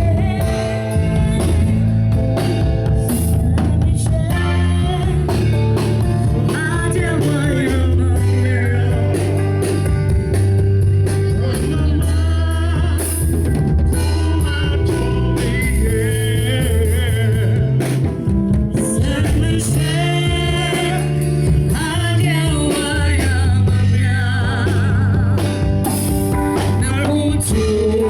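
A band playing a song: a sung lead voice with vibrato over a drum kit and a bass line that moves in held notes.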